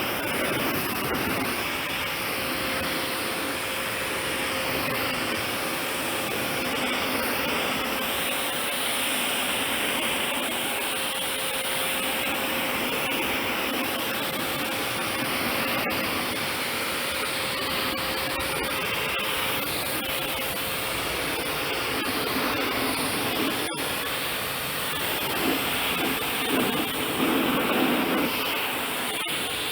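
Kärcher K7 electric pressure washer running, its water jet hissing steadily as it sprays, with a thin motor hum that drops away about two-thirds of the way in; the spray turns uneven near the end.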